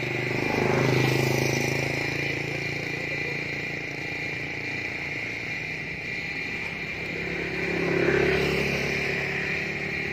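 Outdoor ambience: a steady high insect-like drone over a low engine-like hum, swelling louder twice, about a second in and again about eight seconds in.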